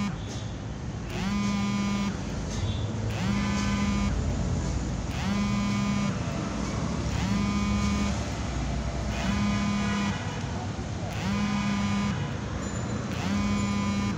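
A horn-like electronic alarm sounding about once every two seconds, each tone about a second long, sliding up briefly at the start and then holding steady, over steady street traffic noise.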